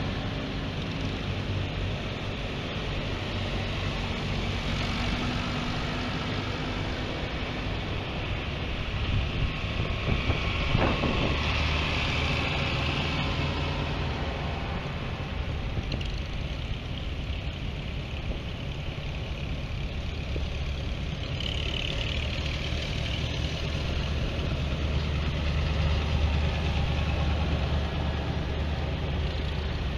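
Vintage farm tractor engines running as tractors drive past one after another, with others idling. The sound swells as one passes about ten seconds in and again near the end.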